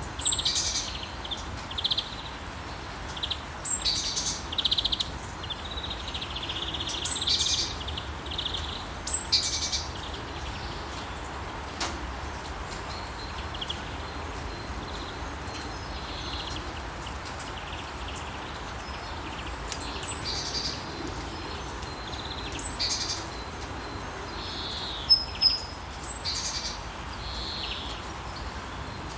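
Small songbirds chirping and singing in short bursts over the steady hiss of falling rain. The birdsong comes in clusters, busy in the first third, sparser in the middle, and busy again near the end with a couple of sharp high calls.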